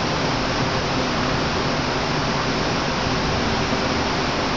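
Underground subway platform ambience: a steady, even rushing noise that holds the same level throughout, with no distinct events.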